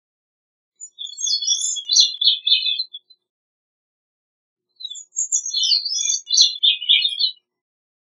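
Gray-cheeked thrush singing: two high song phrases, each about two and a half seconds long. The first starts about a second in and the second about five seconds in, with silence between them.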